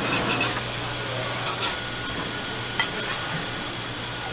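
Metal spatula scraping and clicking on a flat-top griddle as bacon-wrapped rolls are pressed and turned: a few short, sharp scrapes over a steady hiss of frying.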